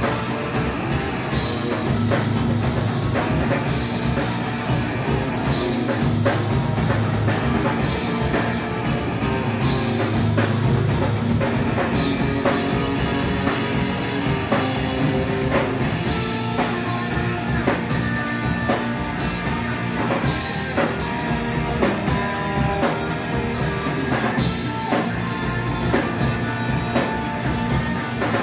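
A live rock band playing a song, with a drum kit keeping a steady beat under guitar.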